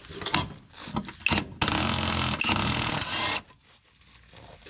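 Hand ratchet wrench working on a rusted exhaust nut: a few separate clicks, then about two seconds of fast continuous ratcheting that stops suddenly.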